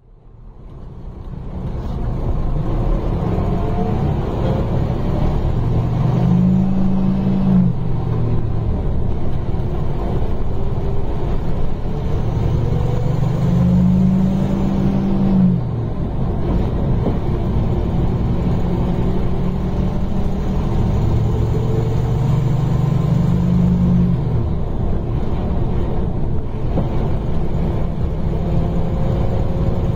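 Scania K310 coach engine heard from inside the passenger cabin, fading in at the start. Its pitch climbs as the bus accelerates and drops back at each gear change, three times over, above a steady low rumble.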